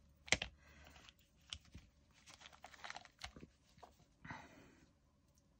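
Hands working the drawstring of a small cloth pouch open: faint rustling of fabric and scattered small clicks, with a brief scratchy rustle about four seconds in.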